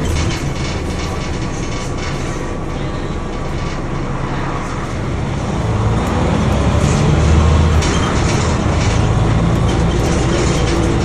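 Interior of a Scania OmniDekka double-decker bus on the move: diesel engine running under steady road noise, with light rattling clicks from the bodywork. The engine grows louder about six seconds in.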